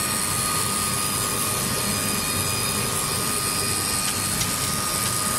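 Bamboo skewer sharpening machine (BXJ-3S) running at production speed, sharpening stick ends: a steady mechanical whir with a constant high whine that does not change.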